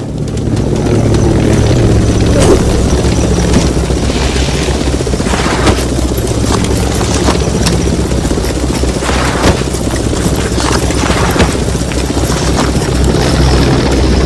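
Battle sound effect: a steady low rumble with scattered sharp bangs like gunfire and explosions.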